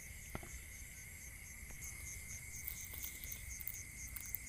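Night insects, crickets, chirping steadily: a continuous high drone with a pulsing chirp about four or five times a second over it. A few faint clicks sound now and then.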